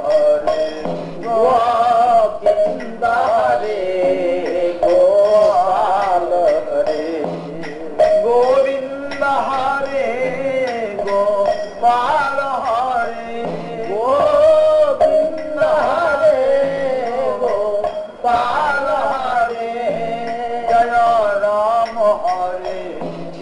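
Devotional kirtan: a man singing a flowing, ornamented melody over steady held accompaniment, starting a new phrase twice.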